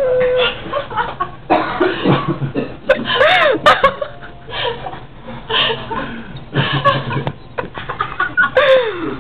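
A man coughing hard in repeated, irregular fits, breaking twice into a drawn-out, wavering vocal sound, about three seconds in and near the end.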